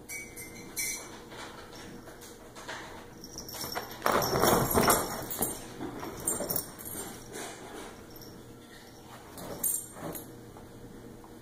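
A dog and a kitten play-wrestling on fabric couch cushions: scuffling and soft thumps, loudest in a burst of scuffling about four seconds in.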